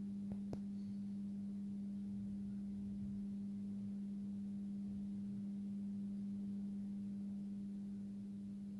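Steady electrical hum of a 400 W Philips HPI-T metal halide lamp running on its 50 Hz ballast: one unwavering low tone with fainter overtones above it. Two faint clicks about half a second in.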